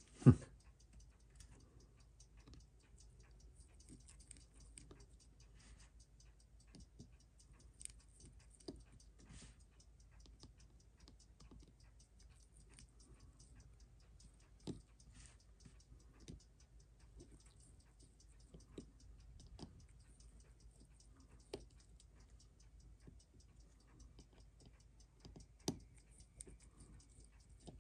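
Small metal clicks and taps of steel tweezers and a screwdriver on a Seiko 6309 watch movement held in a movement holder, with a sharp click just after the start. A steady, fast, faint ticking runs underneath.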